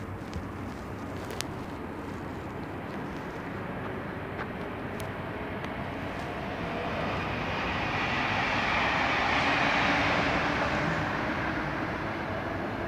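Electric commuter train running past on the station tracks: a steady rumble of wheels on rail that swells to its loudest about nine to ten seconds in and then eases off, with faint steady tones under the noise.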